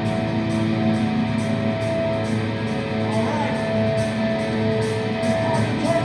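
Live hardcore band playing: guitar chords held over steady drums and cymbals.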